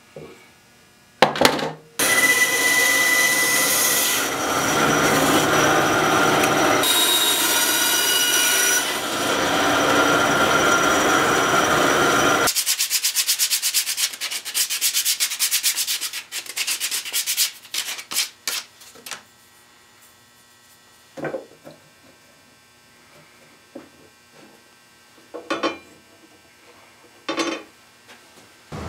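Sandpaper rubbing on the wooden handles of hand saws: a steady stretch of sanding starting about two seconds in, then quick short strokes, then a few light knocks.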